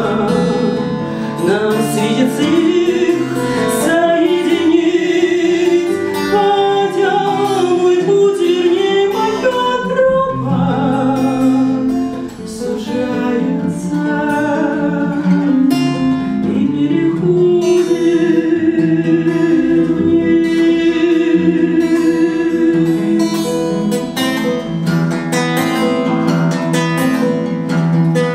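A woman singing a Russian bard song to her own acoustic guitar. Her voice carries a wavering melody with several long held notes over the guitar accompaniment.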